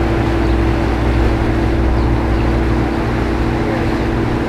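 Sportfishing boat's engines running steadily at low harbor speed, a constant low drone.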